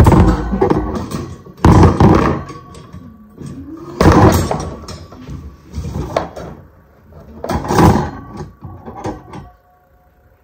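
Black metal wire frame pieces being handled and fitted together, knocking and rattling against each other and the floor in a series of loud knocks, roughly every two seconds.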